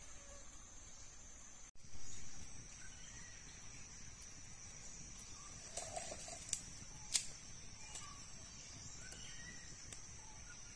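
Steady high-pitched trill of insects, with scattered short bird chirps and a few sharp clicks around the middle.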